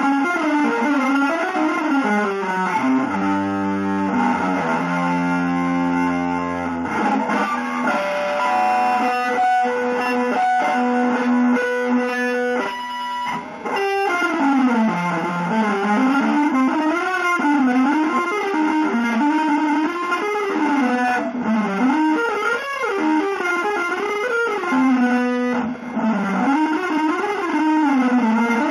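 Electric guitar playing a quick, winding single-note line that rises and falls in pitch. A low chord is held for several seconds near the start, and a few long sustained notes come around ten seconds in.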